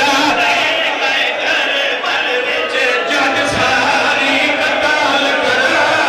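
A large crowd of men chanting together in mourning while beating their chests (matam), with hand slaps on chests heard among the voices.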